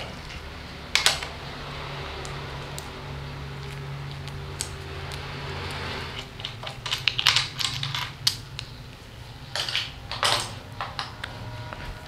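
Small metallic clicks and clinks of an Allen key working the top cap bolt on a road bike's stem, in scattered clusters over a low steady hum.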